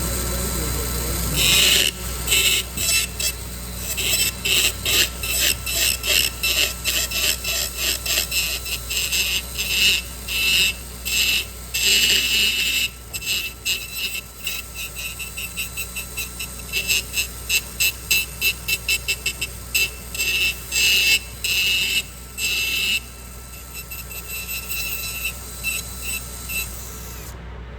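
High-speed surgical drill with an angled handpiece: the motor's steady high whine, broken by a long series of short, rapid grinding bursts as the spinning burr mills into material. It cuts off abruptly just before the end.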